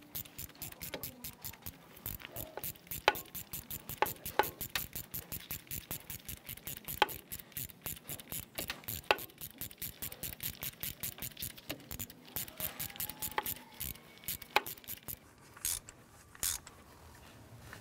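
Ratchet clicking rapidly and steadily, about five clicks a second, with a few louder clicks, as a new spark plug is run in on a socket and extension. The clicking thins to a few single clicks near the end.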